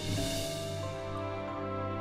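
Instrumental background music: held chords that change every half second or so, with a shimmering swell near the start.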